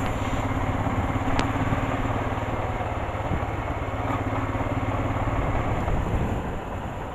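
Motorcycle engine running steadily at low speed with a low, even hum, a little quieter near the end.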